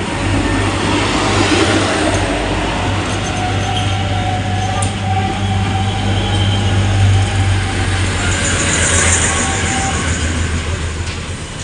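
Diesel-hauled train running past at speed: a steady rail rumble with a low engine hum beneath it, easing off near the end.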